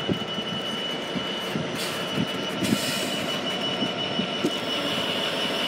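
Container freight train behind a Class 66 diesel locomotive (66504) passing at the platform. The wagons rumble steadily, with irregular clicks and knocks from the wheels over rail joints and a steady high whine over the top.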